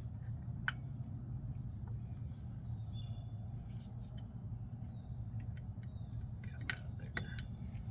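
A few light clicks and taps of hand tools and metal parts being handled on a Jeep CJ5 rear axle, one about a second in and a small cluster near the end, over a steady low hum.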